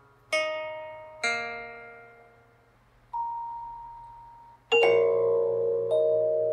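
A short musical jingle of struck, ringing notes on a keyboard or mallet instrument. Two single notes die away within the first second and a half, a lone high tone sounds about three seconds in, and a loud chord near the end rings on.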